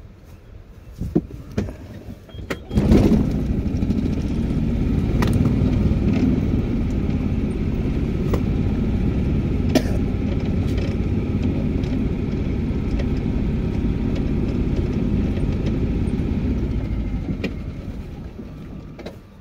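A golf cart ride: a few clicks, then from about three seconds in the steady low rumble of the cart moving, which fades out near the end as it comes to a stop.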